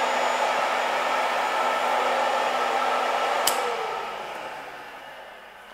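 Littleford Lodige FM-130-D plow mixer and its high-speed chopper running steadily, with a held whine. A sharp click comes about three and a half seconds in as the mixer is shut off, and the motors wind down, their whine falling in pitch and fading away.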